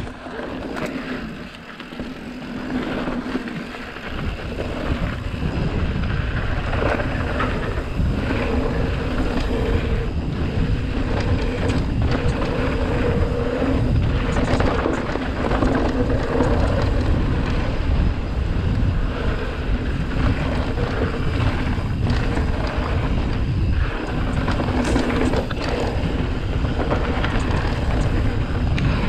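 Wind buffeting the camera microphone as a mountain bike rides down a dirt trail, with steady tyre rumble and frequent knocks and rattles from the bike over rough ground. The noise builds over the first few seconds as speed picks up.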